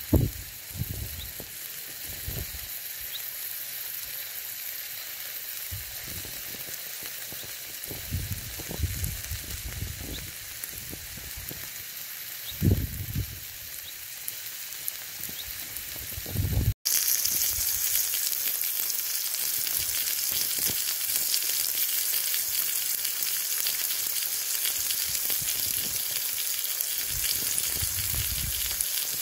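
Sliced mushrooms sizzling steadily in hot oil in a Trangia frying pan, getting louder a little past halfway. Occasional low rumbles and a thump about the middle come through under the sizzle.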